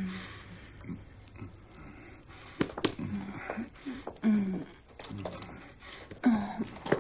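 A couple kissing: breathy sighs and short, low moans, with small clicks in between. The loudest moans come a little past halfway and again near the end.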